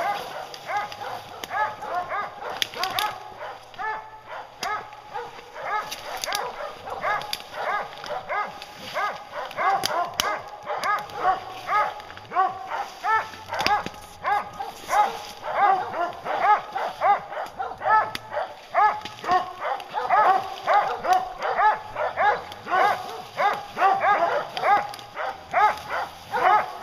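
A pack of English hounds barking at a treed bear: many rapid, overlapping barks, several a second without a break, growing louder in the second half.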